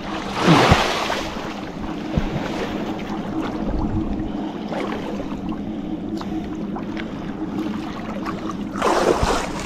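Motorboat engine running at a steady, even hum, with two brief louder rushes of noise, about half a second in and near the end.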